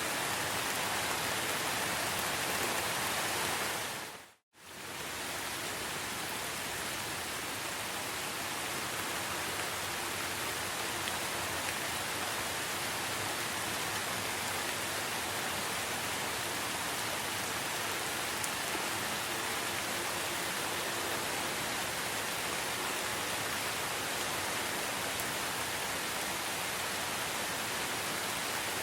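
Steady, dense rainfall, with a brief dip to silence about four seconds in before the rain sound comes back.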